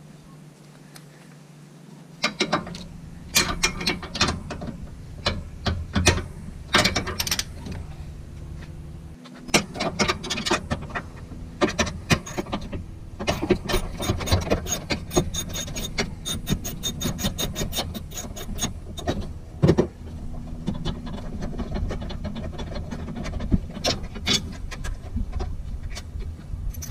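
Hand socket ratchet clicking in quick runs as bolts on a transmission mount bracket are worked loose, mixed with sharp metal clinks and knocks of the tool against the bracket. It starts about two seconds in, with the longest even run of clicks around the middle.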